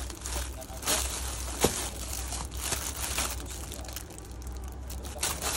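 Clear plastic wrap crinkling and rustling as packs of vacuum-sealer bags are handled, with one sharp tap about a second and a half in, over a low steady hum.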